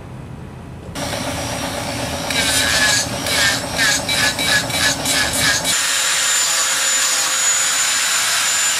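Hand sawing with a serrated blade, a quick back-and-forth stroke about three times a second over a steady scraping noise. About five and a half seconds in, the strokes stop and a steady hiss with a thin high whistle carries on.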